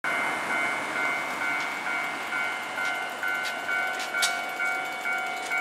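Railway level-crossing warning bell ringing, a steady electronic two-tone ding repeating a little over twice a second: the crossing is closed for an approaching tram. A few short clicks come through about halfway in.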